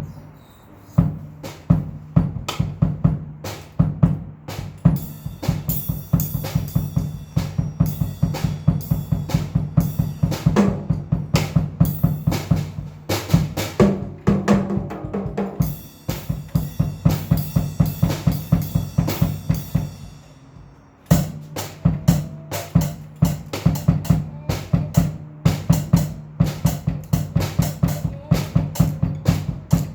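Music led by a drum kit playing a fast, steady beat of bass drum and snare. The beat drops out briefly about twenty seconds in, then starts again.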